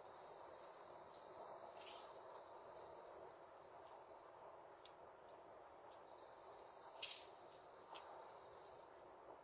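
Faint, steady high trill of night insects such as crickets, breaking off for about two seconds in the middle, over a low background hiss. Two short sharp sounds cut in, the louder one about seven seconds in.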